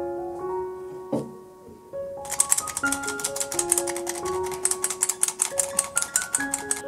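Light keyboard music with plucked-sounding notes. From about two seconds in comes a fast run of light, crisp ticks, about nine a second, which fits a fine-mesh sieve being tapped to dust powdered sugar over sponge cake.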